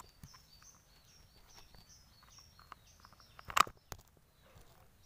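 A small bird repeating short, high, down-slurred chirps in a quick alternating two-note pattern, about three a second, with one sharp loud click about three and a half seconds in.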